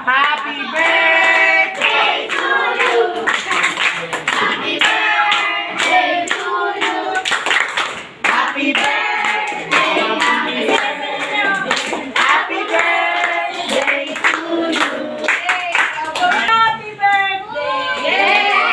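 A group of children singing together, with hands clapping along.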